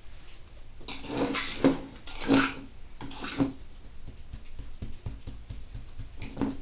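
Metal spoon scraping and scooping dry spice rub out of a bowl, several rough scrapes in quick succession with a ringing note from the bowl, then one more scrape near the end.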